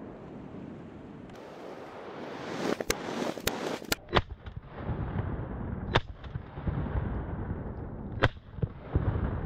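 Shotgun blasts: three in quick succession about three seconds in, then single shots at roughly two-second intervals. A steady wash of moving river water runs underneath.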